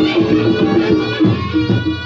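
Reog Ponorogo accompaniment music playing loudly and continuously, with a pulsing drum beat under several pitched melodic instruments.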